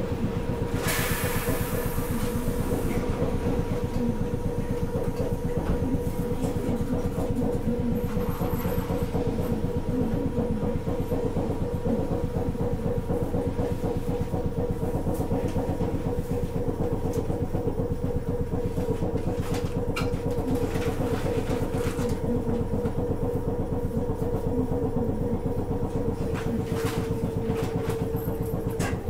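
Onboard sound of Sapporo streetcar M100-type car M101: a steady hum over a fast, even low chugging from the car's machinery. A hiss comes about a second in, and the chugging cuts off suddenly near the end.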